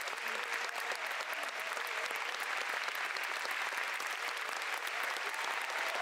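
Audience applauding in a concert hall: many hands clapping steadily.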